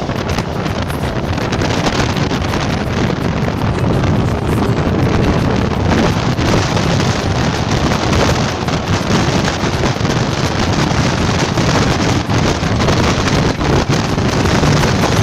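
Loud wind buffeting the microphone at the open window of a moving train, a dense, irregular rush of air that drowns out everything else.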